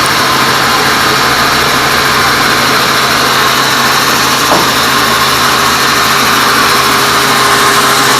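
Band sawmill running, a loud, steady mechanical noise with a low hum under it. A single brief knock sounds about four and a half seconds in.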